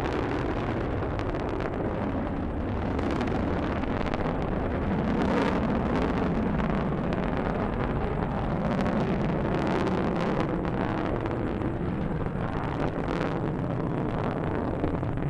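Delta II rocket climbing under its main engine and solid boosters: a steady, dense rumble of exhaust noise with a rough crackle running through it.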